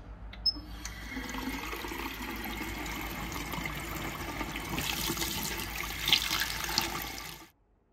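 Water running from a two-handle chrome sink faucet into a washbasin, starting just after a sharp click about half a second in.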